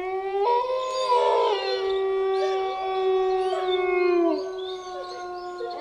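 Several wolves howling together in a chorus: long held notes at different pitches overlapping, some sliding up and down, starting abruptly. The lowest howl falls away about four seconds in while higher voices carry on.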